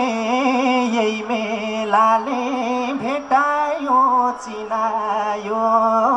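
Nepali dohori folk music: a single melodic line that wavers and slides between notes, between the sung verses.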